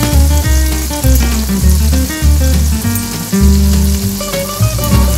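Background music with a repeating bass line, over the sizzle of garlic and diced tomatoes frying in oil in a stainless steel pan.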